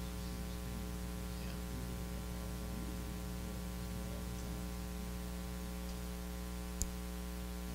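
Steady electrical mains hum and hiss in the recording, with faint, distant voices barely audible under it and a single sharp click about seven seconds in.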